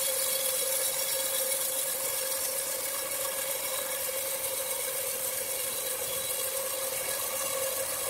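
Horizontal band sawmill cutting through a large log, running evenly with a steady drone under a high hiss.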